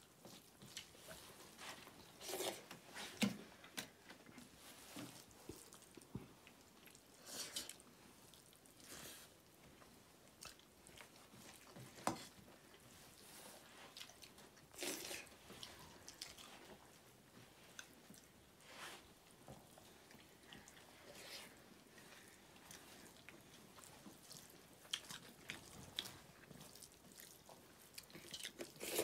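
Quiet eating sounds: several people chewing buffalo meat and rice eaten by hand from metal plates, with scattered short clicks and rustles.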